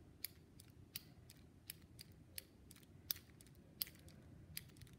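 Plastic action-figure squeeze mechanism clicking as the legs of a Kenner Super Powers Wonder Woman figure are squeezed over and over, swinging her arm in the deflector-bracelet move: a string of sharp small clicks, about two to three a second.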